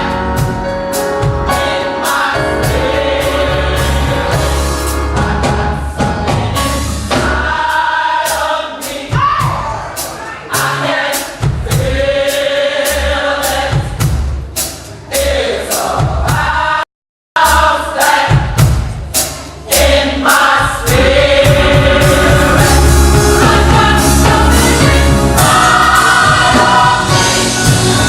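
Gospel choir singing over a band with a steady beat. The sound cuts out completely for about half a second midway, then the choir comes back in full.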